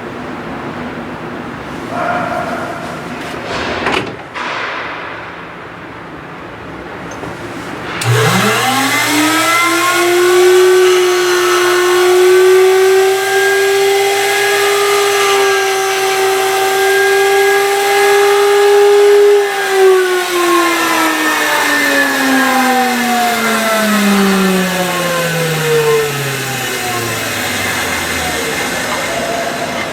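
Skate sharpening machine's grinding-wheel motor switched on about eight seconds in, its whine rising quickly to a steady pitch over a low hum, then switched off about eleven seconds later and spinning down, the pitch falling slowly for several seconds. Before it starts there is light handling noise and a click.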